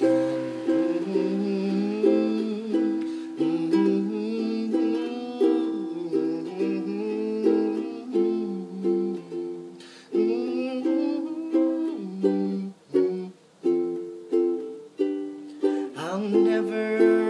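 Instrumental passage of chords strummed on a plucked string instrument, with no singing.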